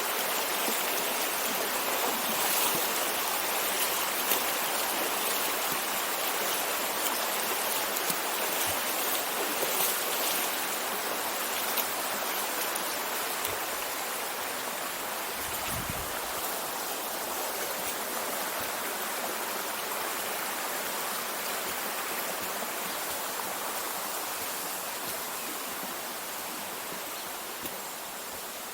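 River water rushing steadily over a shallow crossing: a continuous watery noise that eases a little in the second half, with one brief low thump about halfway through.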